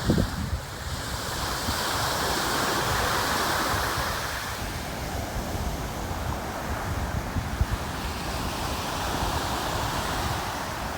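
Ocean waves breaking and washing ashore, swelling about two seconds in and again near the end, with wind rumbling on the microphone.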